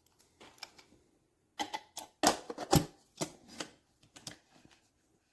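About a dozen irregular clicks and clunks of hard objects being handled, loudest in a quick run just past the middle.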